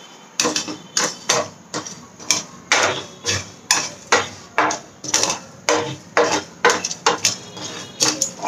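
Wooden spoon stirring dry-roasting seeds and lentils (fenugreek, mustard, cumin, chana dal) in a nonstick kadai, with a scrape or knock against the pan about twice a second.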